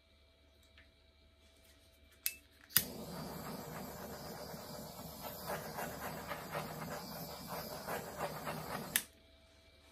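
Handheld butane torch: two sharp clicks of the igniter about two and a half seconds in, then the steady hiss of the flame for about six seconds, cut off abruptly near the end.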